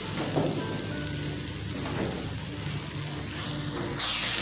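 Chopped onions sizzling in ghee in a non-stick frying pan, stirred with a spatula in the first seconds. The sizzle suddenly gets louder and brighter about four seconds in. Background music plays over it.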